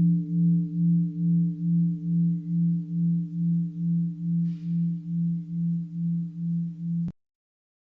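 Mindfulness bell ringing on after a strike: a low hum that pulses about two to three times a second as it slowly fades. The sound cuts off abruptly about seven seconds in.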